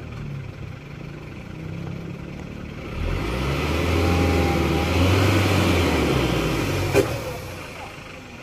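Mitsubishi Colt Diesel truck's diesel engine revving under heavy load, swelling about three seconds in, held, then easing off near the end, as the stalled, fully loaded truck is backed down a steep climb. A single sharp click sounds about seven seconds in.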